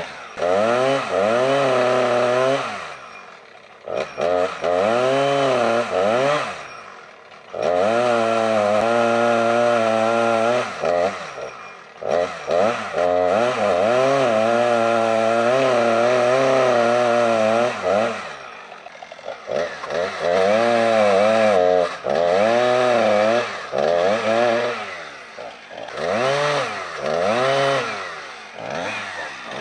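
Two-stroke chainsaw making a felling cut in a tree trunk. It revs up and down several times, holds at high revs for several seconds at a stretch, and drops back briefly between cuts.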